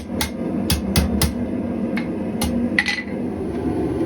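A hammer striking steel about seven times at an uneven pace, sharp metallic clanks with a brief ring after one near the end, over a steady low rumble.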